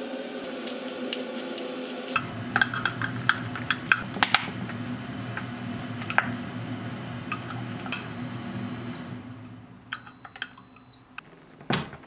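A wooden spoon stirring thick mayonnaise sauce in a ceramic gravy boat, with small clinks and taps against the porcelain, over a steady appliance hum. Near the end two long high beeps sound a couple of seconds apart, typical of an air-fryer oven finishing, and a sharp clack follows as its door is opened.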